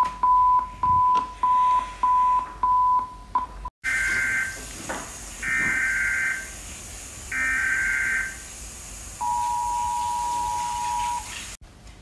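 An emergency alert tone of a rapid series of short, even beeps at one pitch, cutting off about a third of the way in. Then the US Emergency Alert System: three harsh screeching data bursts of the SAME header, followed by the two-tone attention signal, held for about two seconds over a steady hiss.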